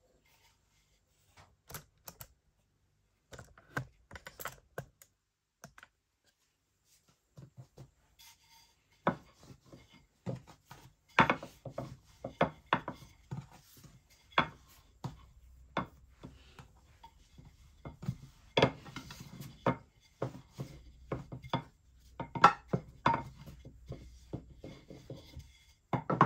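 Irregular knocks, clicks and taps of kitchen handling, such as utensils, a pan or a board on a worktop, sparse at first and busier after about nine seconds, with a low steady hum underneath from then on.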